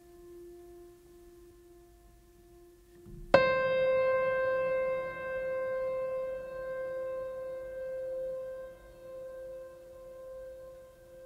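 Calm background music: a soft held tone, then about three seconds in a single struck keyboard note that rings on and slowly fades.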